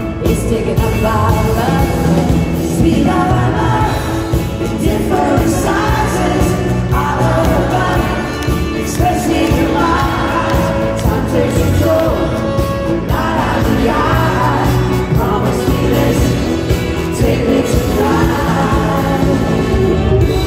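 Live pop-rock band playing a song, with guitars, drums and keyboards under a lead vocal sung in phrases.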